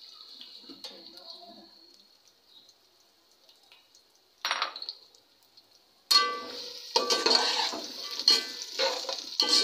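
A steel spoon stirs sliced onions in hot oil in a steel pot, scraping and clinking against the metal over a sizzle. It starts about six seconds in, after a faint, mostly quiet stretch broken by one brief noise near the middle.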